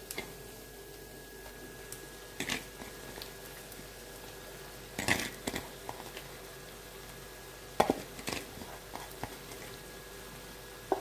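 Mashed boiled potatoes going into a nonstick pan of onions frying on a low flame: a faint steady sizzle, broken by half a dozen short knocks and clatters of a steel bowl and utensils against the pan, the loudest about five seconds in and again near eight seconds.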